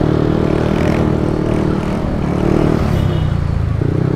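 Yamaha NMAX 155 scooter's single-cylinder engine running at a steady pitch while riding, over a wash of wind and road noise.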